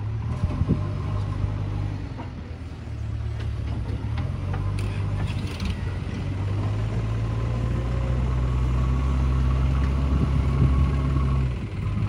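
JCB 3DX backhoe loader's diesel engine running under load, getting louder about three seconds in and holding high as the machine works, with a few short knocks early on and a brief drop near the end.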